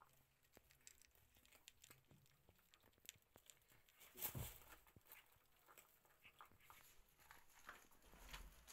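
Faint crunching and clicking of a cat eating dry kibble from a plastic tray, with one louder knock about four seconds in.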